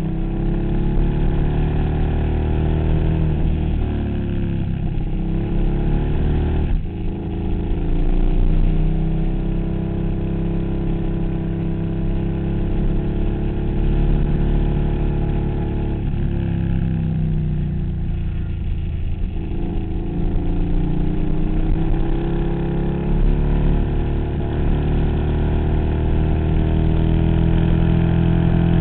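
KTM Super Duke's V-twin engine heard from on board, its pitch rising and falling as the throttle is opened and rolled off through a run of curves. The engine note drops briefly several times, most sharply about seven seconds in.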